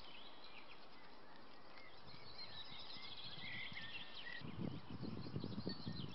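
Faint outdoor ambience with small birds chirping here and there; from about four and a half seconds in, a run of soft crackling rustles joins in.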